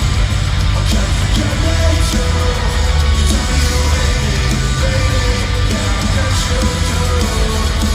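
Live pop-punk rock music played loud through an arena PA, with heavy bass and drums and distorted guitars, heard through a phone microphone, with crowd noise mixed in.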